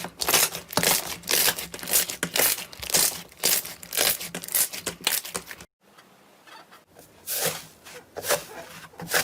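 Slime being squeezed and pressed by hand, giving a rapid, irregular run of sharp crackling pops. It cuts off abruptly about two-thirds of the way through, and after a short quiet gap the crackling starts again.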